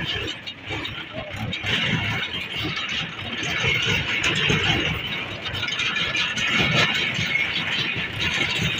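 Farm tractor running and rattling as it drives over a rough dirt track, an uneven rumble with clattering.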